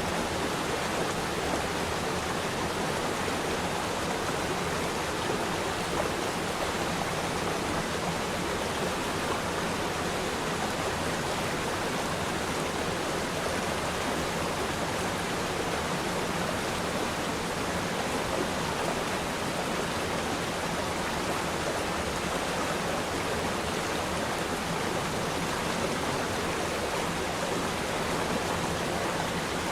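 Waterfall water rushing and splashing in a steady, even roar with no change.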